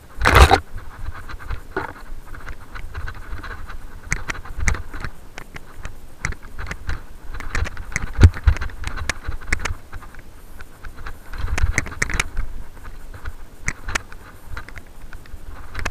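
Mountain bike riding down a rough dirt singletrack: a constant stream of rattles and clicks from the bike over bumps, over a low rumble on the microphone. A loud knock comes about half a second in.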